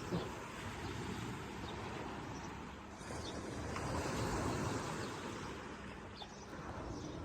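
Black Sea waves washing onto the shore, swelling about three seconds in and easing off again, with a few faint short bird chirps.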